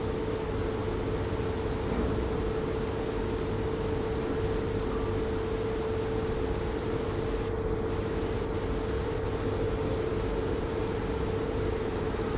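Multifunction hydrofacial beauty machine running during a skin scrubber treatment: a steady hum with one constant mid-pitched tone over a rushing hiss, cutting off suddenly at the end.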